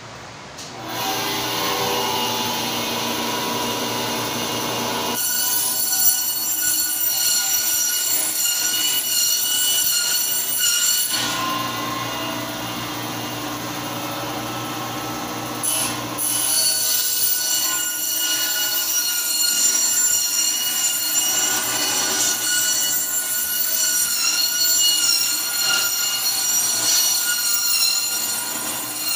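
Electric meat band saw starting up about a second in and cutting through a goat carcass. It alternates between a lower hum and a high-pitched squeal while the blade cuts through meat and bone, squealing from about five to eleven seconds in and again from about sixteen seconds on.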